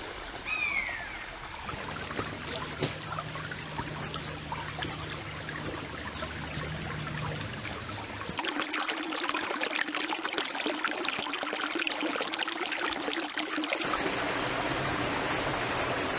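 A woodland stream running steadily, louder and brighter from about halfway through. Near the start comes a single short falling call, typical of a common buzzard's mew.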